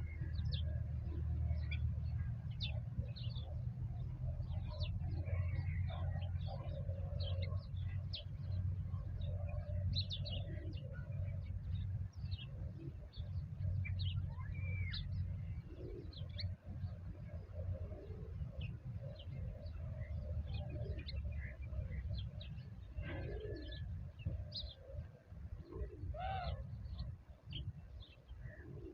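Birds calling: many short high chirps and lower cooing calls, over a steady low rumble that eases off in the second half.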